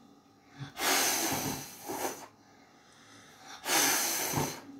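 A child blowing hard at birthday candles: two long puffs of breath, the first about a second in and lasting about a second and a half, the second near the end and about a second long.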